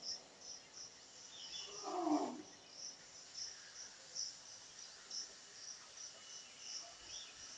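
Faint insect chirping, an even high-pitched pulse about three times a second, with one brief lower sound about two seconds in.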